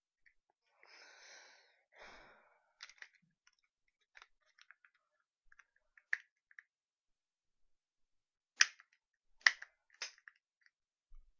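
Small hard parts being handled and fitted: a short scraping rustle early on, then scattered light clicks and three sharp snaps near the end as pieces click into place.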